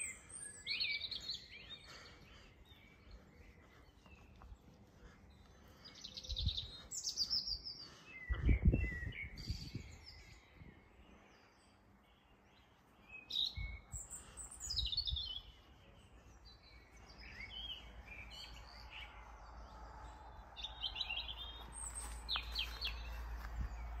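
Small birds singing and chirping, with a few brief low thuds. In the last several seconds a low rumble and hiss build steadily as a train approaches along the line.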